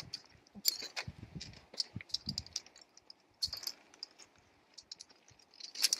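Metal carabiners and rigging hardware on a rescue stretcher clinking and rattling in irregular light clicks as rope tails are fed through them by hand.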